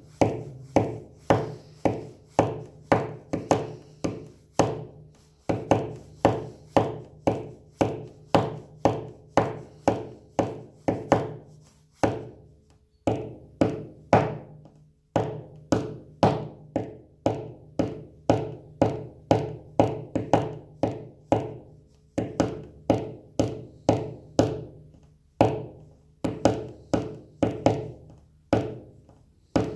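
Rhythm of the second part of a 2/4 pipe march beaten out by hand as sharp taps on a hard surface, each tap ringing briefly, in an uneven long-and-short pattern of about two to three taps a second with a couple of short breaks.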